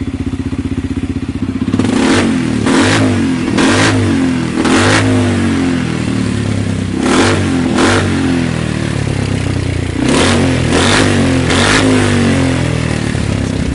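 Dinli 270 quad engine running through an aftermarket slip-on silencer, idling and blipped about nine times, mostly in quick pairs, each rev rising and dropping straight back to idle.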